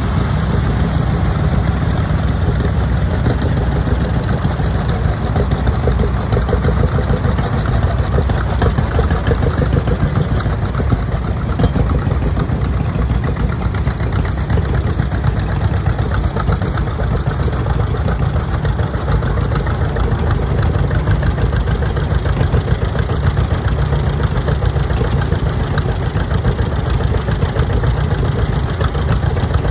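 An engine idling steadily, a loud low rumble that runs on without a change in speed.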